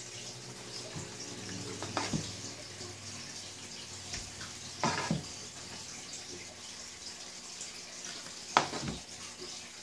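Steady kitchen hiss with a low hum under it. Three short handling knocks break it as dough is stretched over a metal baking pan, the loudest near the end.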